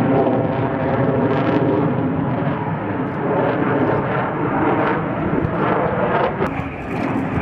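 Eurofighter Typhoon's jet engines running loud and steady as the fighter flies overhead in a display.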